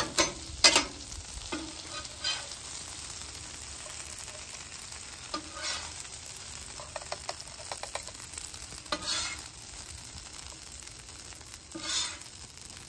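Cheese-crusted birria tacos frying on a flat-top griddle, a steady sizzle. A metal spatula scrapes and clicks against the griddle surface several times as the tacos are lifted off.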